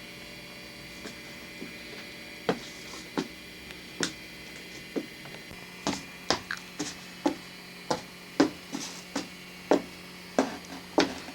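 Short, sharp crunches of a pretzel being chewed, about one a second at first and about two a second from the middle on, over a steady electrical hum.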